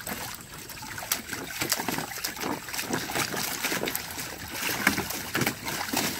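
Dog pawing and digging at the water in a plastic kiddie pool, a continuous run of irregular splashes and sloshing.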